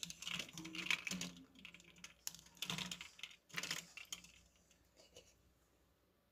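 Rapid clattering clicks from a bowl of live kuruma prawns and ice cubes, in several bursts over the first four seconds: prawns flicking and knocking against the ice and the bowl.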